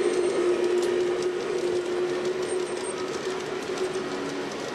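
G-scale model train running along the track: a steady electric-motor hum with light clicking of the wheels over the rails, slowly fading as it moves away.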